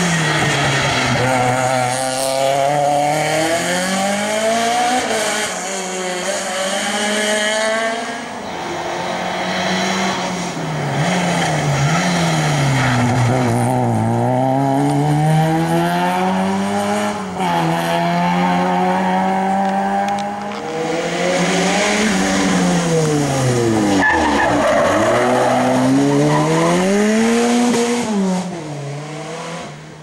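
Small rally cars, among them a Peugeot 106, driven hard past one after another, their engines revving up and dropping back over and over through gear changes and braking.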